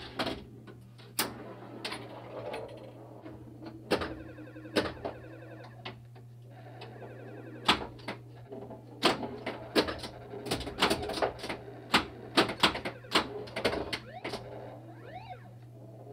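1980 Gottlieb pinball machine being played: sharp irregular clacks of flippers and solenoids, coming thick and fast in the second half, with short electronic tones and rising sweeps over a steady low hum.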